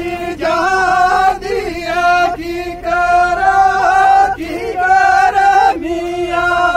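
A group of men chanting together in unison, in long held notes broken by short pauses.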